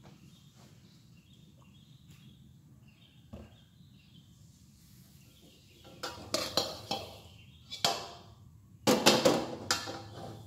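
Clinks and knocks of a wok and its metal ladle being handled on a gas stove. After a stretch of faint low background with a single knock, the clatter comes in quick clusters from about six seconds in, loudest near the end.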